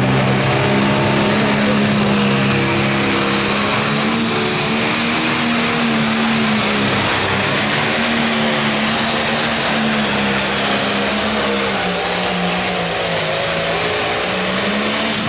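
Limited Pro Stock pulling tractor, a John Deere 4455 with a turbocharged diesel, running at full throttle as it drags the sled down the track, with a high whistle over the engine note. The engine drops off suddenly near the end as the run finishes.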